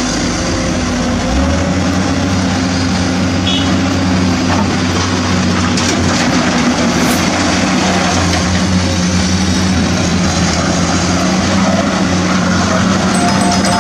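Heavy truck engine running steadily with a low hum; the hum shifts about a second and a half in.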